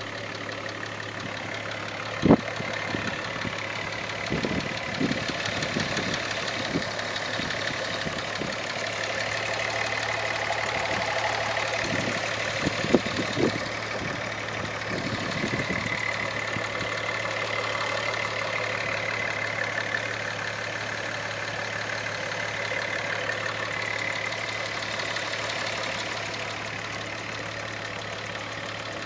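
Volkswagen Jetta's VR6 engine running with a ticking sound that the owner doubts is normal. A few sharper, louder clicks stand out about 2 seconds in and again around 13 seconds.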